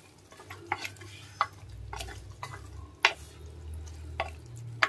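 Wooden ladle stirring okra pieces in a clay pot, with several sharp knocks of the ladle against the pot spread through.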